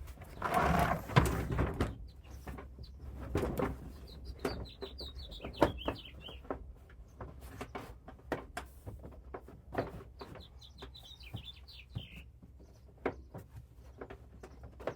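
A rubber trim-to-fit cargo mat being handled and laid into a car trunk: a loud rustle about a second in, then scattered knocks and taps. Between them, a bird outside sings twice, each time a quick run of high chirps falling in pitch.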